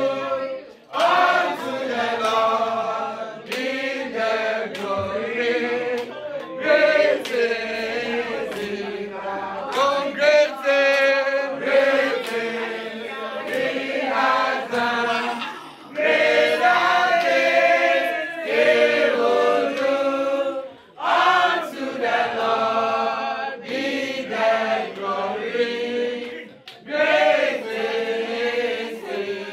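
A group of voices singing a worship song together, with little or no instrumental backing, in long phrases broken by short pauses.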